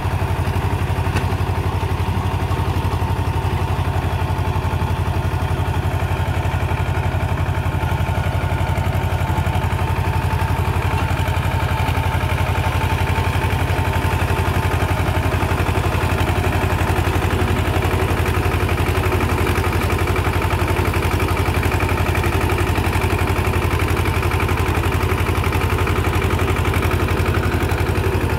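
Tractor engine running steadily at an even speed, with a fast, regular low throb.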